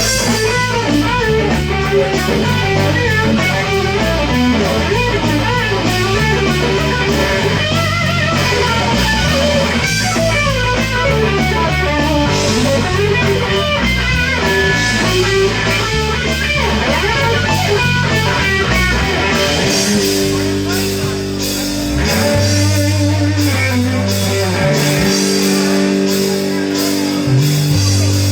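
Live rock band playing an instrumental: a busy electric guitar lead of quick notes over a moving bass line. About twenty seconds in the lead thins out, leaving longer held bass notes and chords.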